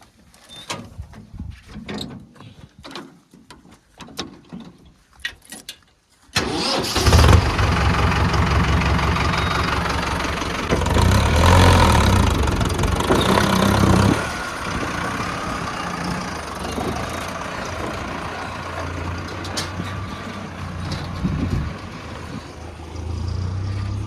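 A few faint clicks and knocks, then a heavy diesel engine starts abruptly about six seconds in. It runs louder for a few seconds around the middle, then settles to a steady run.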